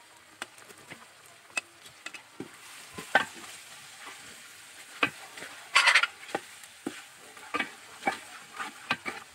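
Wooden spatula stirring tomatoes into spiced oil in a large aluminium pot: irregular knocks and scrapes against the pot's side and bottom, the longest scrape about six seconds in, over a faint frying sizzle.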